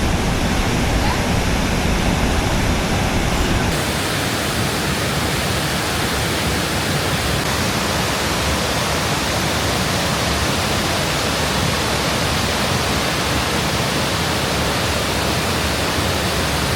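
Large waterfall rushing as a steady, very loud roar of falling water. The deep rumble drops away somewhat about four seconds in.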